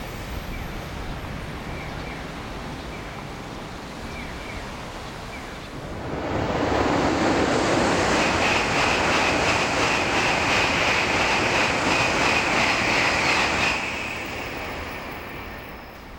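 N700-series Shinkansen train passing through a station at high speed without stopping. A rush of noise swells about six seconds in, holds loud for about eight seconds with a steady high whine and a fast regular pulsing, then fades away.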